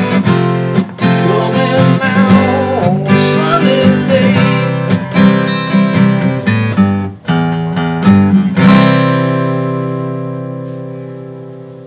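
Steel-string acoustic guitar strumming chords in a steady rhythm, playing the song's piano riff arranged for guitar. About nine seconds in a final C chord is struck and left ringing until it slowly fades.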